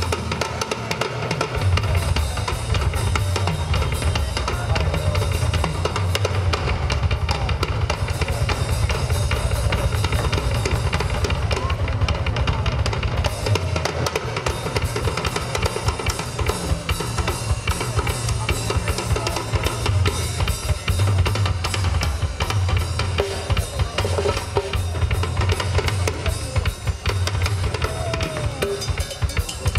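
Rock drum kit played live in a fast, dense solo, with kick drum, snare and cymbals, over an electric bass holding low notes.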